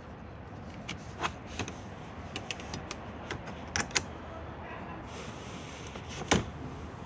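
Rear door window's manual pull-up mesh sunshade being handled: a string of light clicks and rattles as it is pulled up and hooked, then let back down into the door sill, with a louder snap near the end.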